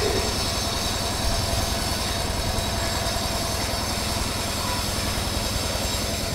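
A railway locomotive running steadily close by: an even low rumble with a few faint high-pitched whining tones over it.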